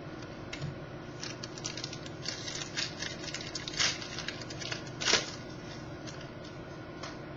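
Baseball trading cards being handled and slid one against another: a quick run of light clicks and rustles, with one louder snap or rustle about five seconds in.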